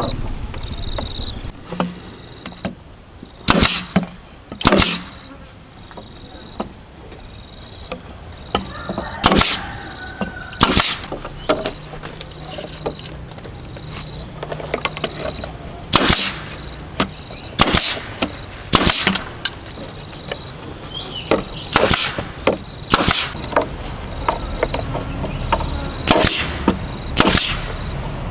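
Pneumatic brad nailer firing nails into bamboo laths: about eleven sharp shots, mostly in pairs a second or so apart, with pauses between while the next lath is placed.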